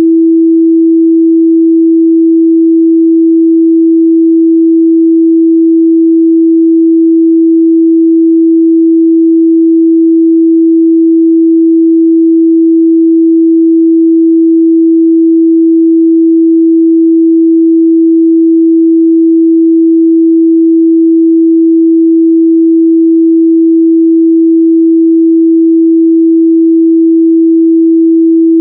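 A steady, loud pure 328 Hz sine-wave test tone, one unbroken pitch with no overtones, used to check a speaker's or headphones' midrange response.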